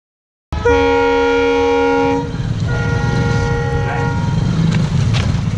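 Train horn sounding two blasts, a loud one about half a second in and a fainter one from about 3 s, over a low rumble.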